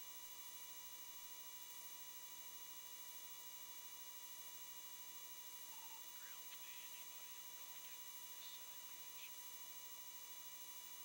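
Faint, steady electrical hum made of many fixed tones, with a few faint, brief chirping sounds about six to nine seconds in.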